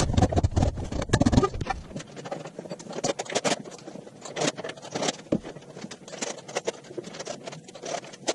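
Sped-up time-lapse audio of assembly work on a CNC plasma table: a dense, rapid, irregular clatter of clicks, knocks and scrapes, with heavier low thuds in the first second or so.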